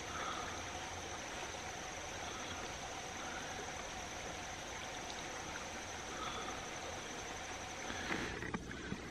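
Shallow creek water trickling and rippling in a steady rush, with a few short clicks near the end.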